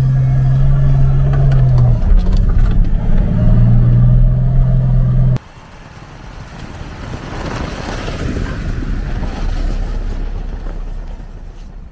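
Jeep engine droning steadily while driving on a snowy road, its pitch dipping briefly about two seconds in. It cuts off abruptly; then a 2012 Jeep Wrangler JK drives up and past through deep snow, engine and tyres churning snow swelling to a peak and fading.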